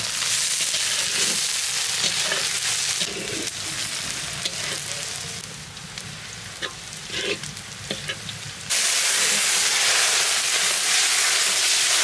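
Chopped onion sizzling in hot mustard oil in a large metal wok, stirred and scraped with a metal spatula. The sizzle drops quieter for several seconds in the middle, with a few sharp spatula scrapes, then comes back loud about three-quarters of the way through.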